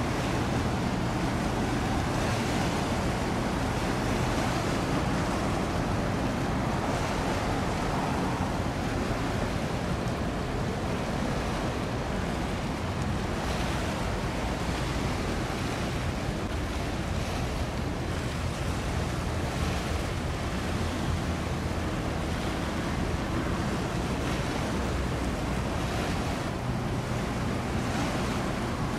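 Wind rushing over the microphone and choppy sea water, a steady noise with a faint low hum underneath.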